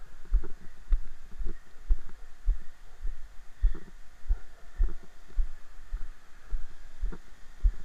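Footsteps on a grass and earth path, picked up through a body-worn camera as dull low thuds, evenly paced at about two a second.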